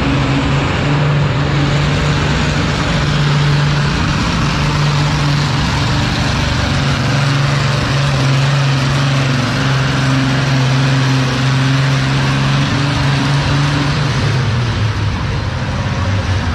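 Antique farm tractor's engine running steadily under load while it pulls a weight-transfer sled at about 11.6 mph. The engine note falls away about fourteen seconds in as the pull ends.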